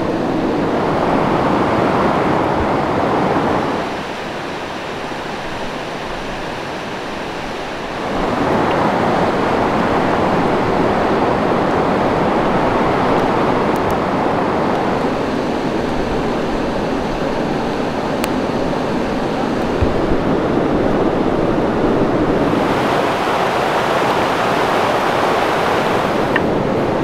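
A steady rushing noise with no speech. It drops and dulls abruptly about four seconds in, returns about four seconds later, and turns brighter and hissier a few seconds before the end.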